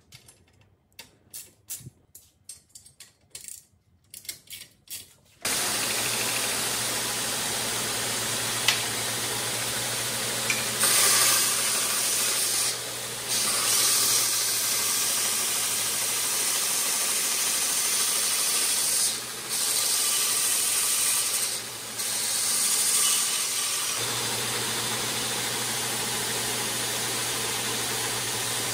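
A few light metallic clicks and taps, then the homemade belt grinder comes in suddenly about five seconds in and runs steadily, a hiss of the abrasive belt over a low motor hum. The sound dips briefly three times along the way.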